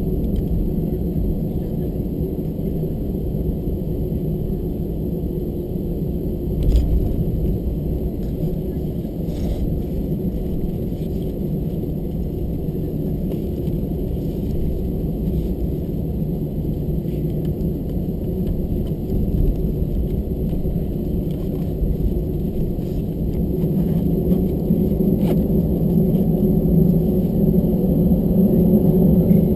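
Airbus A321-200 cabin noise while taxiing: the CFM56 engines running at low taxi thrust, heard from inside the cabin as a steady low hum. There are a few faint knocks about 7 and 9.5 seconds in, and the hum grows a little louder over the last few seconds.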